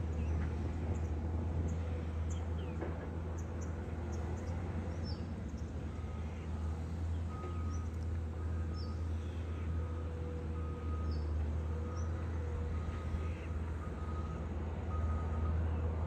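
Heavy diesel construction machinery running with a steady low drone. From about six seconds in, a reversing alarm beeps about once a second, and small birds chirp now and then.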